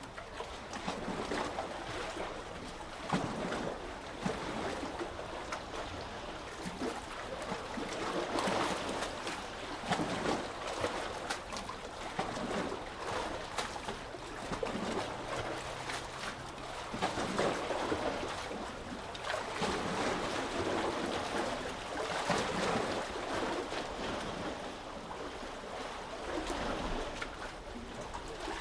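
Small sea waves washing and lapping in, swelling and easing every few seconds, with splashing and trickling water between.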